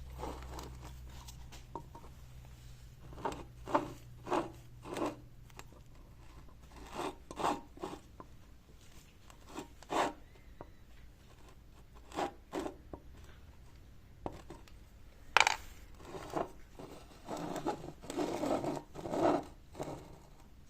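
Hand work on the parts of an opened bicycle rear hub and freehub: irregular short rubbing and scraping strokes, with a few sharp clicks, the loudest about two-thirds of the way in.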